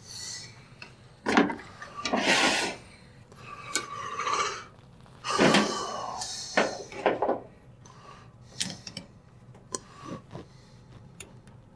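Irregular rubbing and scraping with scattered clicks as the rubber door seal and its metal retaining wire are pulled and worked off a Whirlpool front-loading washer's tub. The heavier scrapes come in the first half; later there are only lighter clicks and rubs.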